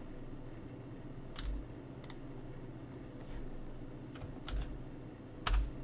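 Computer keyboard keystrokes: about five separate sharp clicks spread over a few seconds, some with a dull knock, as keyboard shortcuts such as Ctrl+C are pressed.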